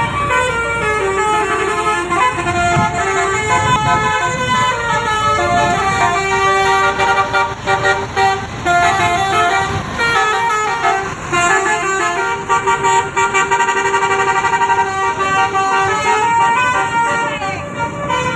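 Basuri 'telolet' multi-trumpet bus air horn playing a tune, its notes stepping quickly from pitch to pitch.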